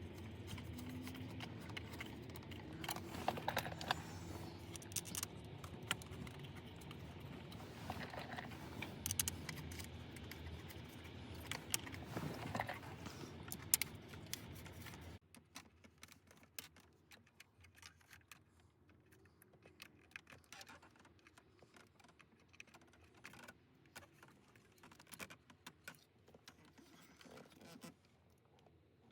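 Hands handling small car-interior parts: scattered light clicks, taps and scrapes, quieter after an abrupt drop in level about halfway through.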